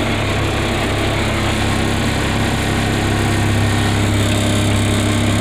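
Cummins diesel engine of a Badger mobile excavator running steadily with an even low hum, showing good oil pressure.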